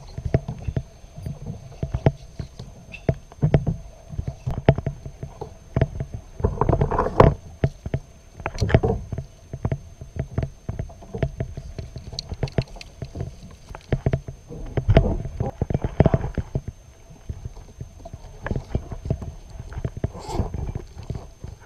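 Water slapping and sloshing against a kayak hull over a low rumble, with many irregular sharp knocks and clicks from the boat and fishing gear being handled.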